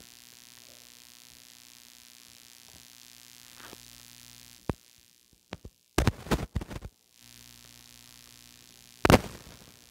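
Steady low electrical hum in the recording, broken about halfway through by several sharp clicks and knocks while the hum drops out for about two seconds, then one loud knock near the end.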